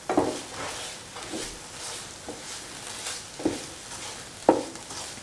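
A spatula stirring and scraping a thick ground-coconut and tomato masala as it sautés in a pan, over a steady sizzle of frying. A few sharper scrapes stand out, one at the start, then two near the end.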